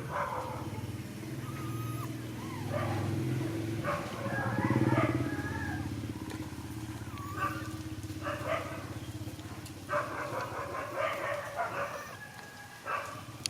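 Pet monkeys giving short, squeaky, bending calls and chatters, sparse at first and coming in quick clusters near the end, over a steady low hum.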